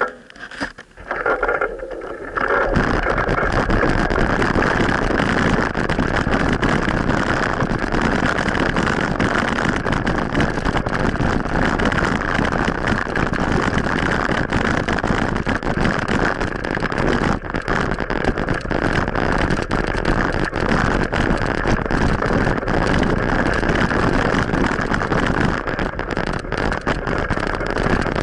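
Steady rushing wind noise buffeting a cyclist's action-camera microphone while riding, setting in about two and a half seconds in after a few uneven, quieter moments.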